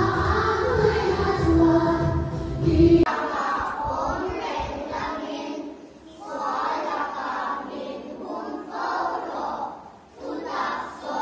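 Music with a group of children singing along, which cuts off abruptly about three seconds in. Then voices recite a prayer in short phrases with brief pauses.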